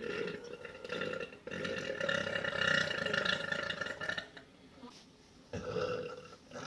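A woman belching, massive drawn-out burps: one running on until about a second and a half in, then a long one of nearly three seconds, and a shorter one starting near the end.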